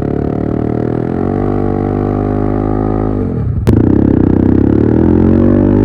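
Yamaha MT-15's single-cylinder engine running at high revs: its pitch slowly sinks for about three seconds, then after a sharp click it gets louder and climbs steadily again.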